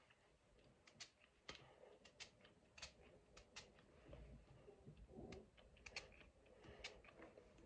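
Faint, irregular soft clicks and rustles of hands rubbing a hair product between the palms and working it into wet hair at the roots.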